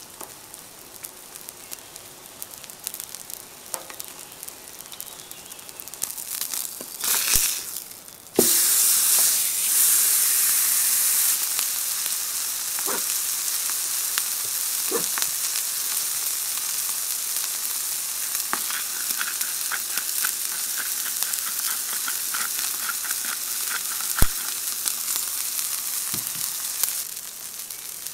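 Beef ribeye steak searing on a hot flat-top griddle: a quieter crackle with scattered pops at first, then a sudden jump about a third of the way in to a loud, steady sizzle that eases off near the end.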